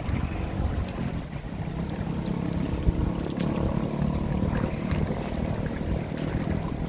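Steady low rumble of wind on the microphone mixed with a car engine running at low speed and the wash of shallow river water, with one short knock about three seconds in.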